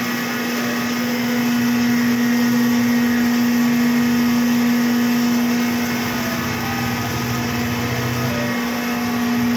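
Shop machinery running steadily with a constant humming tone. A lower rumble joins about a second in and stops shortly before the end.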